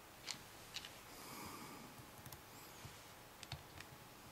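Faint, scattered clicks of a small screwdriver and tweezers against the iPhone 4S's tiny screw and metal bracket as the screw is lined up with the ground clip and driven in, with a short soft hiss a little after the first second.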